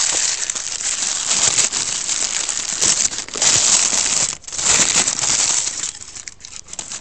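Crinkly plastic wrapping being crumpled and pulled off a tobacco pipe by hand: a dense crackling rustle, with a brief break about four and a half seconds in, dying down near the end.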